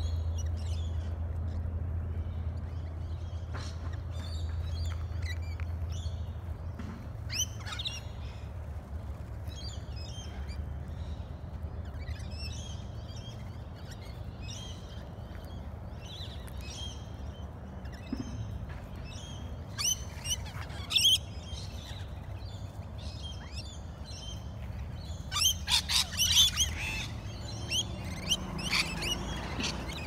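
A flock of rainbow lorikeets chattering with short, shrill screeches while feeding on the ground. The calls grow louder in clusters about two-thirds of the way through and again a few seconds before the end.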